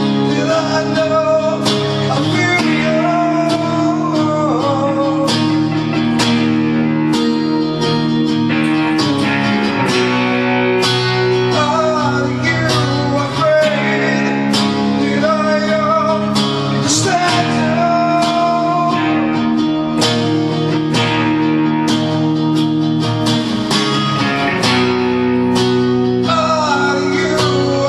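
Acoustic guitars strummed in a live band performance, steady chords with a wavering melody line over them.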